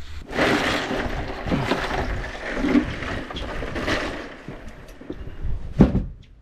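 Ice and bloody water sloshing and rattling in a boat's fish box as the lid is lifted and a fish is pulled out of the slurry, ending about a second before the end with one sharp knock.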